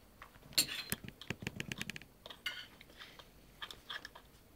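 Plastic buckle of a high chair seat belt clicking and rattling in a series of small knocks as a toddler fumbles the two halves together, without it snapping shut.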